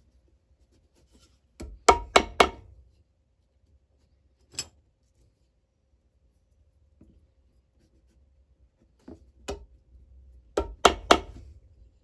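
Sharp hammer blows on a boot at a cobbler's bench, in short groups: three or four quick strikes, a single strike, a pair, then four quick strikes near the end.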